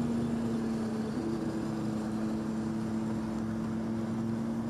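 Camera motorbike's engine running at a steady speed, with wind and road noise; a second, higher tone joins about a second in.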